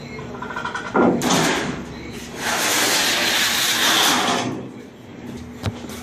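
Manual sheet metal brake working a 20-gauge sheet: a heavy metal clunk about a second in, then a long loud scraping rush as the sheet metal slides against the brake, and a sharp clank near the end.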